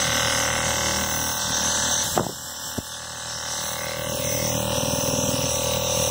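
Tesla Model S air suspension compressor, a 12-volt electric pump, running steadily on the bench and blowing air out through an open four-way manifold. A knock about two seconds in, after which the sound dips in level and then builds back up.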